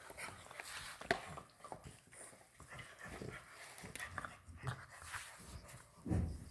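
English bulldog puppies chewing on chew bones: irregular clicks of teeth on the bones, with dog breathing sounds and a louder low burst near the end.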